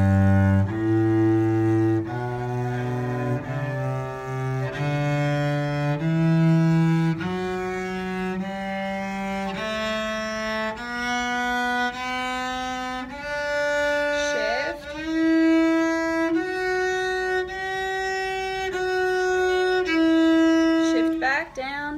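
Solo cello bowing a two-octave G major scale in slow half notes, climbing from open G one step a little over a second at a time. About two-thirds in, the pitch audibly slides up as the player shifts into third position on the A string. Near the end, after the top of the scale, there is another slide as the player shifts back down.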